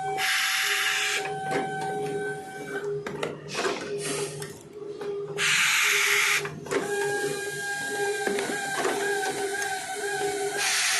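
Automatic brazing machine for diamond saw blade segments running through its cycle: a steady whine with scattered clicks and knocks. Four short hisses break in, at the start, around four and five-and-a-half seconds in, and near the end.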